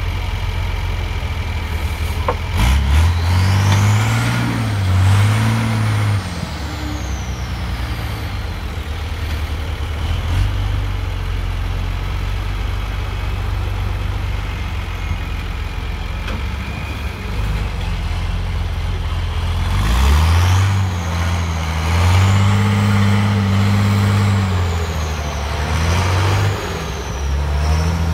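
Trial truck's engine running under load in deep mud, revved hard in two bursts, about three seconds in and again from about twenty seconds in. A high whine rises and falls with the revs.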